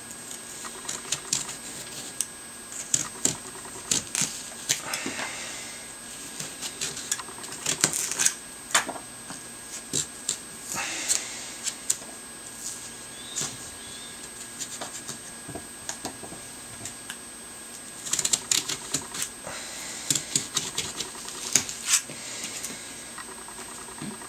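A small hand carving tool scraping and cutting into pumpkin flesh as a face is sculpted, in irregular clicks and short scrapes that come in clusters with pauses between.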